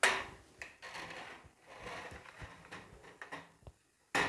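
Handling noise as a plastic LED tube light batten and its wires are moved about on a wooden table: a sharp knock at the start, smaller knocks and rustles, and another sharp knock near the end.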